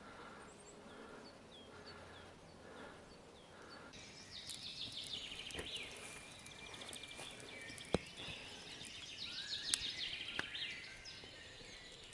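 Songbirds singing with chirps and trills in spring woodland, starting about four seconds in after faint high calls. A few sharp cracks cut through the song, the loudest about eight seconds in, from a small campfire popping.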